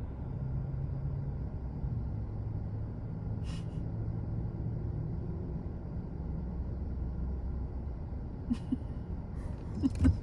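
Steady low rumble of a car driving, heard from inside the cabin, with a few faint clicks near the end.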